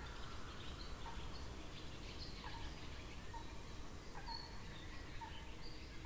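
Faint outdoor ambience with birds chirping: a short call repeats about once a second, with higher, thinner chirps among the calls, over a steady low rumble.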